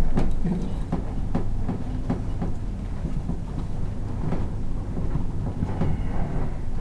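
Hands handling wiring and cable ties at a boat's electrical fuse panel: irregular small clicks and rustles over a steady low rumble.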